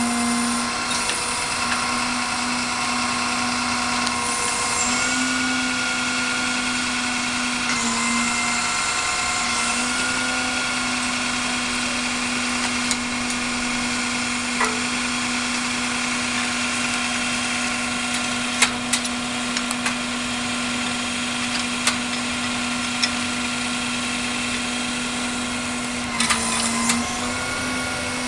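Service truck crane's PTO-driven hydraulic pump whining steadily with the truck engine running, its pitch dipping briefly several times as the crane functions are worked. A few sharp clicks come in the second half, several close together near the end.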